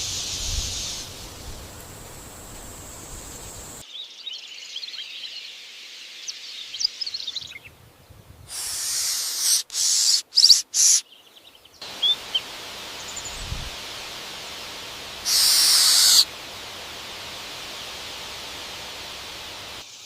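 Birds calling and chirping over a steady outdoor hiss, with short high chirps and a few loud harsh bursts. The sound changes abruptly several times where clips are cut together.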